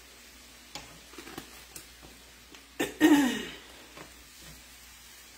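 A few light clicks and taps from the paprika shaker and spatula at the skillet, then about three seconds in a short wordless vocal sound from the woman, falling in pitch, which is the loudest thing here.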